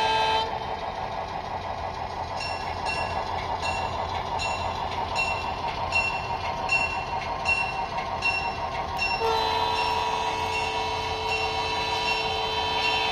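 Sound-equipped model diesel locomotive: its horn stops about half a second in, its bell rings about twice a second over a steady engine drone, and the horn sounds again, held steady, from about three quarters of the way through.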